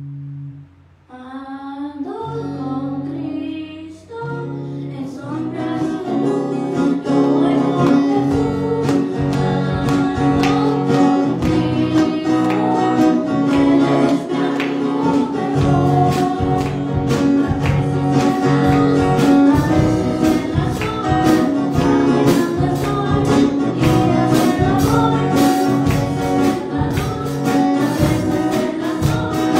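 A Spanish-language worship song with singing over guitar, starting about a second in after a held tone cuts off, and settling into a steady beat a few seconds later.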